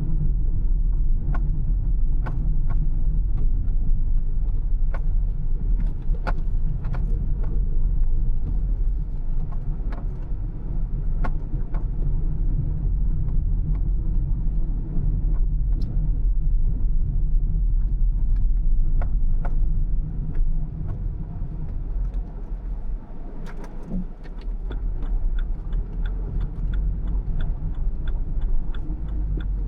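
Car on the move: a steady low road and engine rumble with frequent small clicks and rattles. The rumble eases briefly a few seconds before the end.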